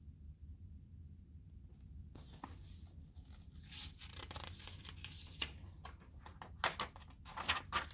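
Pages of a picture book being turned by hand: paper rustling and crinkling, starting about two seconds in, with a few sharper flicks of the pages near the end.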